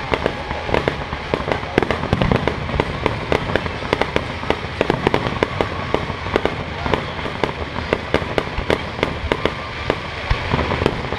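Fireworks display: a dense, continuous barrage of bangs, pops and crackles from aerial shells bursting one after another.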